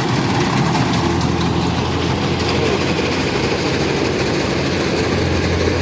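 Kubota DC105X combine harvester running steadily while harvesting rice, its diesel engine and machinery making a constant, unchanging noise.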